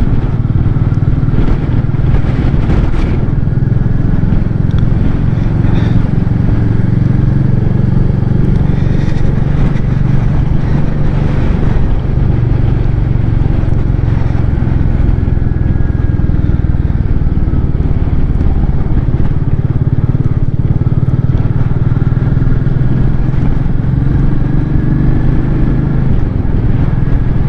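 Royal Enfield Meteor 350's single-cylinder engine running steadily as the motorcycle is ridden along the road.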